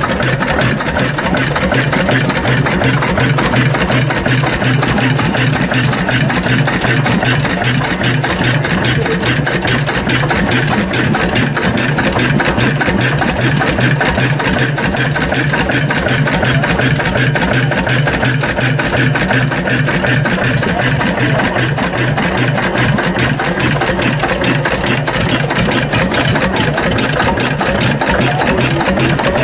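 Vintage stationary engines running steadily, with a fast, even beat and no change in speed.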